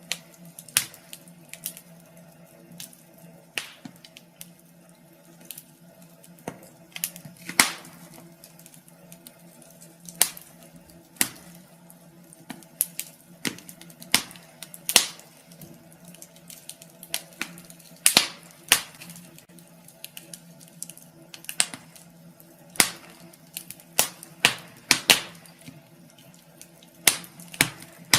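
Wood fire crackling in a fireplace: irregular sharp pops and snaps several times a second, with a few louder cracks standing out, over a faint steady low hum.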